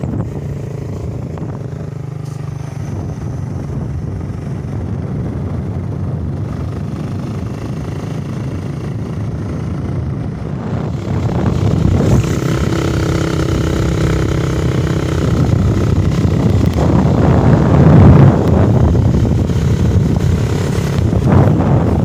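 Motorcycle engine running as the bike rides along, getting louder from about halfway through.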